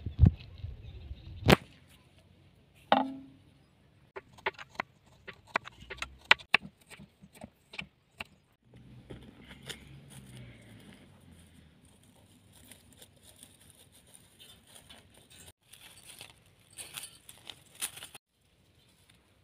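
Dry twigs and straw rustling and crackling as hands gather hen's eggs from a nest, with scattered sharp clicks and a single louder knock about three seconds in.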